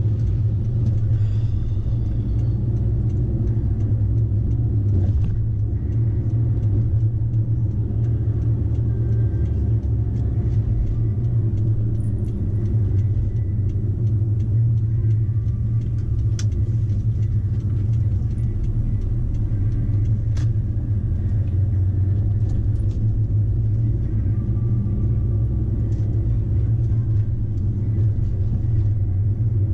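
Steady low rumble of a car driving at around 20 to 25 mph, engine and road noise heard from inside the cabin.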